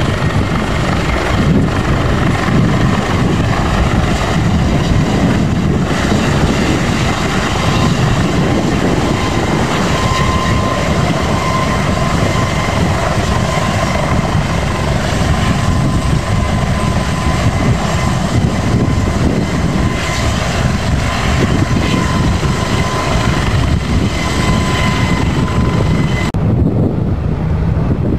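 Aérospatiale Dauphin II helicopter running close by: steady, loud turbine and rotor noise with a high, even whine on top. The sound changes abruptly near the end.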